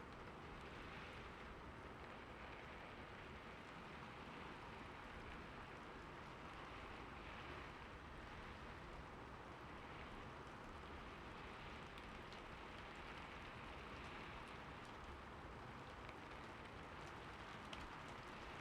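Heavy rain falling steadily, an even hiss with scattered faint drop ticks.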